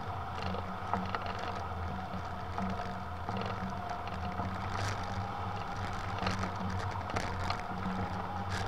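Airflow over a hang glider in flight: a steady wind rush and low buffeting on the wing-mounted camera's microphone, with a faint steady whistle and a few light clicks.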